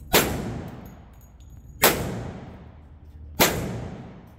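Three gunshots at a shooting range, about a second and a half to two seconds apart, each cracking sharply and dying away in a long echo.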